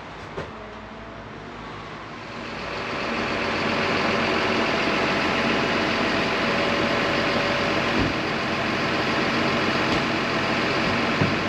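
Truck engine running steadily. Its sound swells over about two seconds a couple of seconds in, then holds steady.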